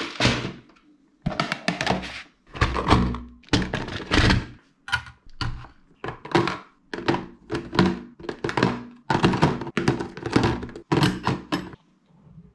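Clear plastic storage boxes knocking and clattering as they are handled and set down, with the small parts inside rattling as the boxes shift; the noises stop about a second before the end.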